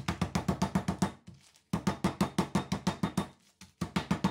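Wooden rolling pin rapidly beating a block of butter in its paper wrapper on a wooden worktop, about eight quick knocks a second in three runs with short breaks between. The butter is being pounded to soften it because it is still too cold and firm.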